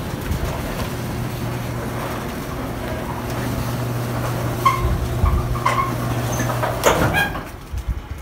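Electric garage door opener running as it raises a sectional garage door: a steady motor hum with squeaks and clicks from the door rollers, ending with a clunk as the motor stops about seven seconds in.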